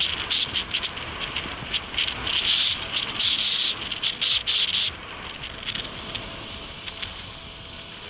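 Snow and ice crunching and crackling under a Toyota 4Runner's tyres as it pushes slowly through deep snow, in dense crackling bursts for the first five seconds, then quieter.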